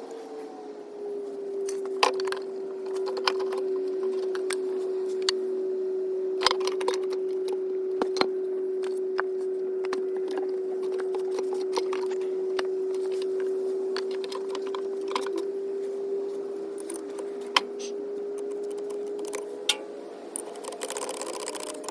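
A small motor hums at one steady pitch, with scattered sharp metallic clinks of tools and bolts being handled.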